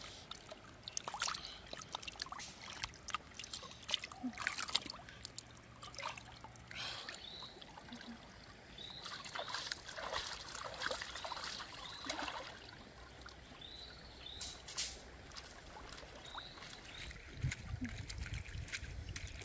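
Water splashing and trickling in a shallow stream as hands wash a gutted fish, with irregular splashes throughout.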